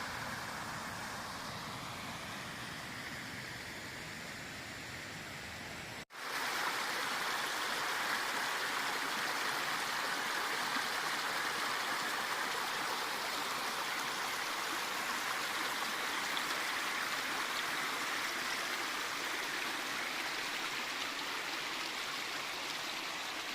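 River water rushing steadily through a run, an even hiss of flowing water that starts abruptly about six seconds in. Before it comes a quieter, duller steady noise.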